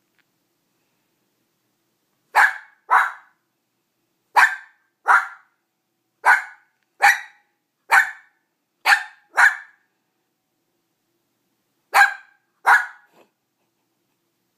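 Small dog barking in short, sharp barks, mostly in quick pairs: eleven barks after a silent start, with a pause of about two seconds before the last pair. The barking is aimed at another dog that is chewing a rawhide the barker wants.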